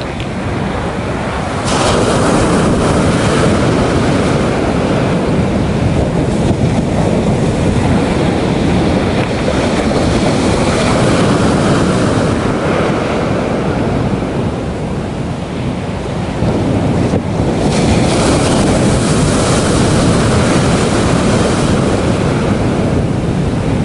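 Ocean surf washing onto a sandy beach, mixed with wind buffeting the microphone. The rush swells about two seconds in, eases for a few seconds past the middle and builds again.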